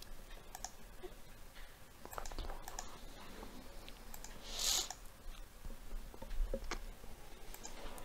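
Computer mouse clicking: a few scattered, fairly quiet clicks, with a brief hiss about four and a half seconds in.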